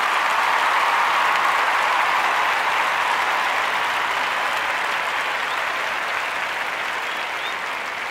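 Steady applause from a crowd, slowly fading.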